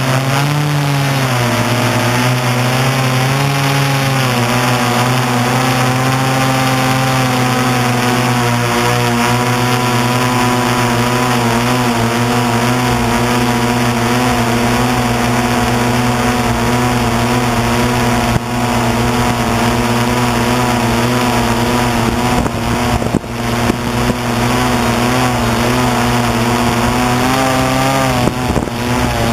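An octocopter's eight electric motors and propellers humming steadily, heard close up over a rushing hiss. The pitch rises and falls briefly twice in the first few seconds as the throttle changes, then holds level.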